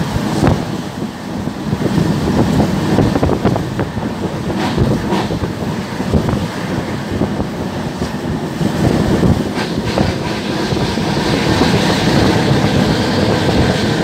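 Moving passenger train heard from an open coach doorway: a steady rumble of wheels on rails, with a few sharp clicks as the wheels pass over rail joints, and wind rushing past the microphone.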